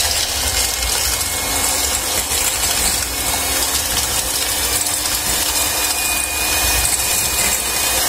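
Electric hand mixer running steadily, its twin beaters whipping coffee, sugar and milk into Dalgona foam in a stainless steel bowl.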